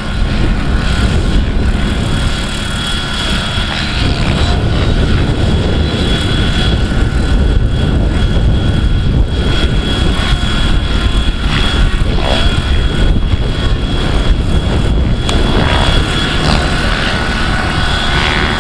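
Large-scale radio-controlled Bell 206 JetRanger model helicopter lifting off and flying, its rotor and drive making a steady high whine over heavy wind buffeting on the microphone.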